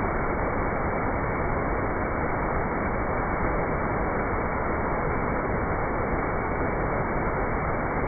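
Steady rush of water from a small waterfall pouring into a rock pool: an even, dull noise with no high hiss.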